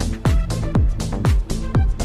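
Background electronic dance music with a steady kick drum about twice a second and crisp percussion between the beats.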